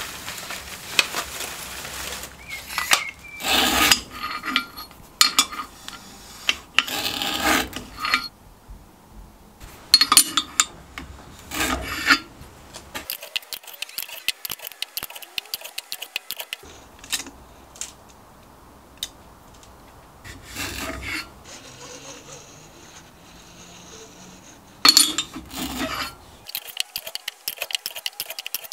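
Hand work on steel parts: repeated short spells of scraping and rubbing of metal on metal, with light clinks, broken by brief quiet gaps.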